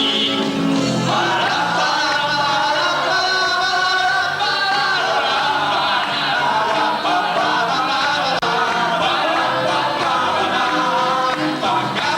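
A song with backing music, voices singing over the accompaniment without a break.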